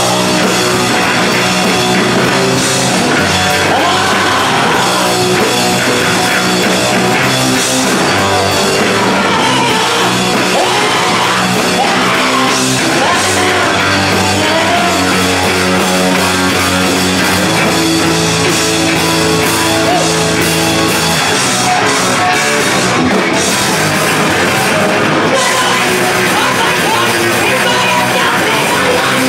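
Punk rock band playing live: distorted electric guitars and a drum kit, with a woman singing into the microphone at times.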